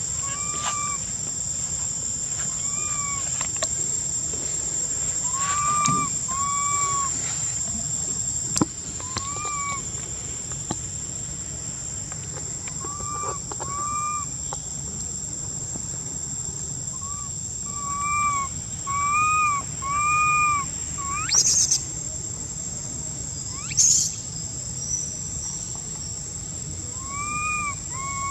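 Insects droning in one steady high tone, over a series of short, arched, whistled animal calls, often in pairs, repeating every second or two. Two quick, sharp upward squeaks come about three-quarters of the way through.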